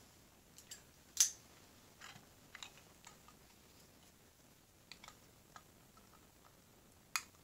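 Faint, scattered clicks and light scrapes of a thin blade and fingertips working at a small plastic 1/64-scale model trailer, prying at its door; the sharpest click comes about a second in.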